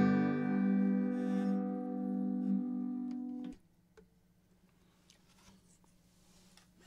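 Final chord of an acoustic guitar ringing out and slowly fading, then cutting off suddenly about three and a half seconds in. After that only a few faint clicks.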